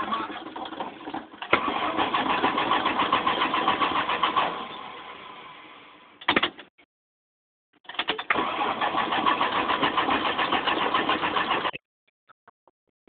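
Chrysler Slant 6 inline-six being cranked by its starter without catching, a rhythmic cranking. The first crank dies away after about five seconds, and after a short pause a second crank of about four seconds stops abruptly.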